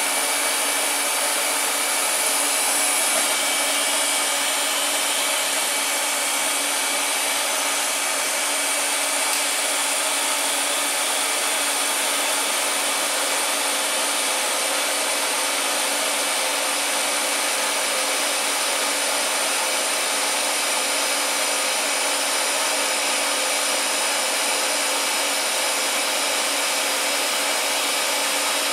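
Steady blower-like hiss with a faint hum, from a TIG welding station while stainless steel is welded to a 1/2-inch turbo flange: the welder's running fans, the respirator blower and the arc. The sound holds at an even level, with a few faint steady tones.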